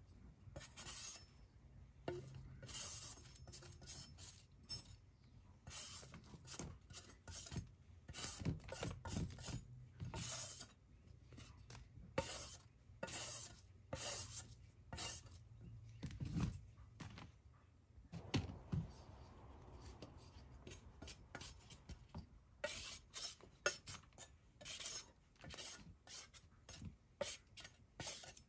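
Metal vegetable peeler scraping strips of peel off a daikon radish and then a carrot, in quick repeated strokes, with a short pause about two-thirds through.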